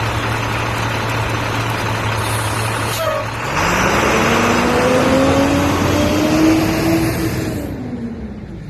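IC CE bus's DT466E diesel engine idling with a steady low hum, then, after a click about three seconds in, revving up with a slowly rising pitch for about four seconds before dropping back.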